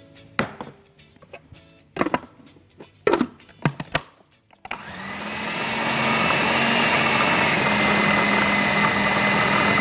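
A few knocks as minced kofta meat is pressed into an electric food processor's bowl. Then, about halfway through, the food processor's motor starts, builds up over a second and runs steadily, grinding the minced meat mixture into a smooth paste.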